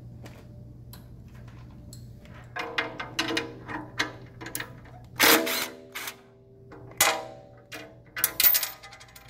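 Cordless impact driver with a 5/32 Allen bit running in several short bursts, mixed with the clicking of a hand socket ratchet, as a cam follower bolt is backed out of a steel lift carriage. The bursts start about two and a half seconds in, the loudest a little past five seconds and around eight seconds.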